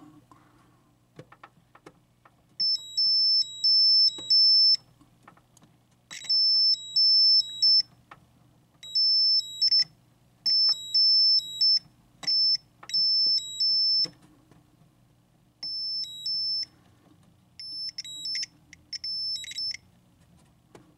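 Logic probe beeping in a high tone, pulsing on and off about twice a second in bursts of a few seconds, as its tip is touched to the output pins of a 6821 PIA chip: the beeping shows each pin toggling, a sign the PIA is working. Small clicks of the probe tip on the pins between bursts, over a low steady hum.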